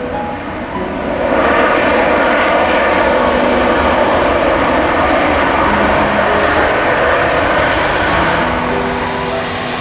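Jet airliner passing low overhead on final approach to land, its engine roar swelling about a second in, holding steady and easing near the end.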